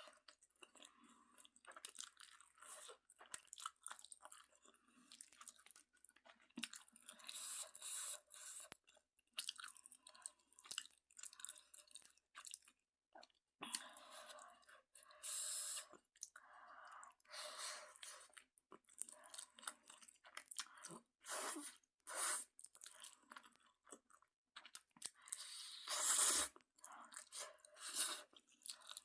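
A person chewing a mouthful of Chapagetti black-bean noodles close to the microphone: wet chewing and mouth sounds in irregular short bursts with brief pauses, the loudest near the end.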